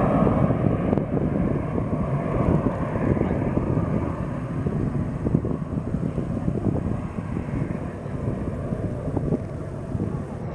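Cessna Citation CJ2 business jet's twin turbofans fading as the jet climbs away after takeoff, a steady rushing sound that slowly grows fainter. Wind buffets the microphone throughout.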